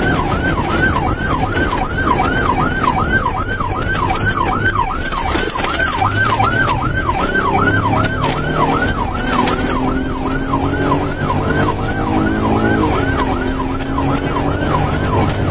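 Police car siren on its fast yelp setting, sweeping up and down about three times a second without a break. Under it are the patrol car's engine and road noise, the engine climbing in pitch as the car accelerates and dropping back about thirteen seconds in.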